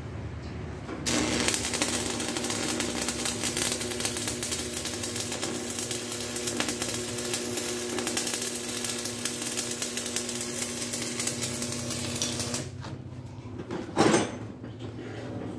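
Electric arc welding: a steady, dense crackle with a low hum. It starts abruptly about a second in and stops abruptly near the end, followed by a single short knock.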